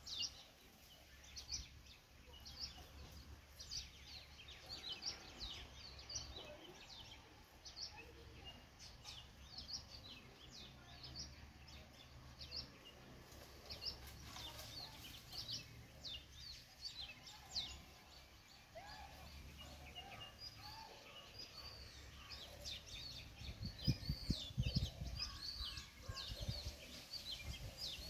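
Small birds chirping, with many short, quick high calls scattered throughout over a faint low rumble. A few louder low thuds come near the end.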